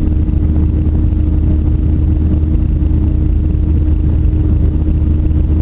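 Airliner engines heard inside the passenger cabin during the climb after take-off: a loud, steady low drone with a constant hum over it.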